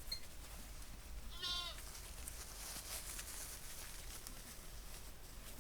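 A goat bleats once, briefly, about a second and a half in.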